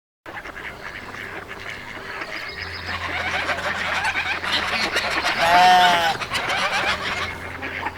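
Domestic waterfowl calling: a steady chatter of short calls, then one loud, drawn-out honk about five and a half seconds in.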